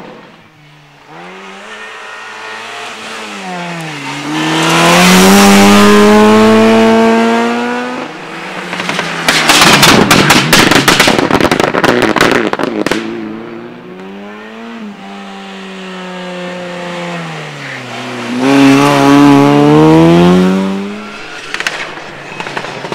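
Rally cars driven hard on a tarmac test stage, their engines revving up and dropping through gear changes, loudest as they accelerate past about four seconds in and again near the end. In between, for several seconds, comes a rapid run of sharp cracks and pops.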